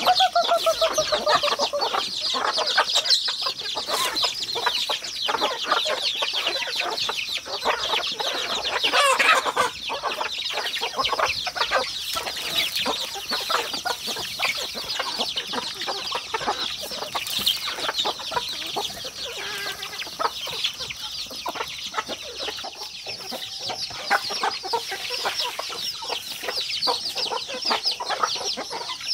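A flock of chickens clucking as they feed, with a drawn-out falling call right at the start and a louder call about nine seconds in.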